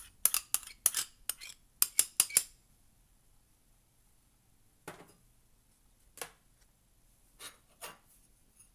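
A spoon clinking and knocking against a bowl while ingredients are spooned in: a quick run of sharp clinks in the first couple of seconds, then a few softer, scattered knocks.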